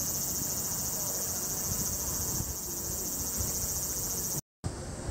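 Steady, high-pitched outdoor insect chorus over a low rumble of wind. It cuts off abruptly about four and a half seconds in, leaving duller outdoor ambience.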